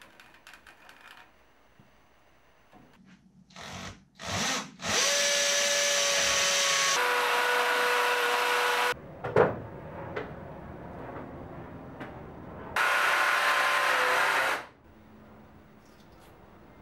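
Electric drill boring holes into the wall. A couple of short bursts are followed by a steady run of about four seconds, whose pitch drops slightly partway, then a single knock. A second run of about two seconds follows.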